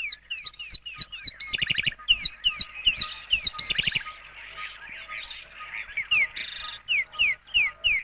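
Birds calling at dawn in the African bushveld: a fast run of clear whistled notes, each falling in pitch, broken by short harsh rattles about one and a half, three and a half, and six and a half seconds in.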